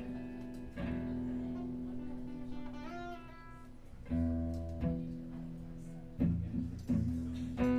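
Acoustic guitar playing the instrumental intro to a song: chords struck and left to ring, restruck about every second or so, with a sliding note about three seconds in.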